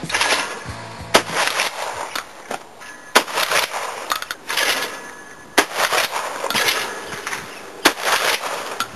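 Shotgun fired four times, roughly two to two and a half seconds apart, each sharp shot trailing off in a short ringing tail.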